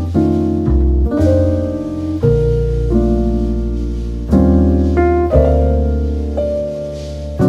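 Background piano music: chords struck over a bass line, a new chord about every second or two.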